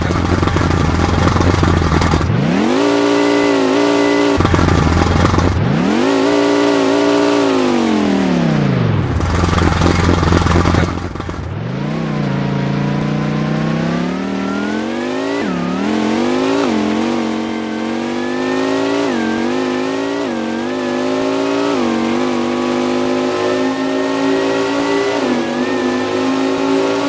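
A loud motor or engine note with strong overtones. It sweeps up and falls back twice, then climbs slowly, dipping briefly about every second and a half.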